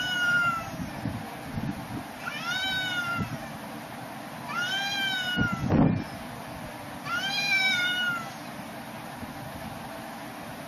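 A cat meowing: a call trailing off at the start, then three more drawn-out meows about two and a half seconds apart, each rising and then falling in pitch. A loud thud comes about halfway through.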